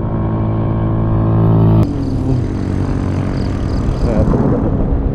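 Motor traffic on the road: a nearby vehicle's engine gives a steady hum that grows louder, then breaks off abruptly just under two seconds in. After that comes a noisier mix of engine and road sound.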